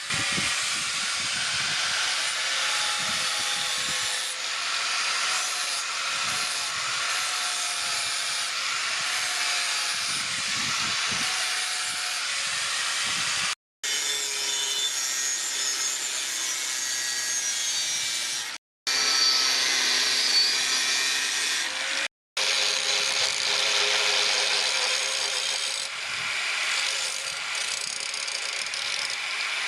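Power tool grinding steel: a steady abrasive hiss with a motor tone that wavers under load. It runs in several stretches, broken three times by sudden cuts to silence.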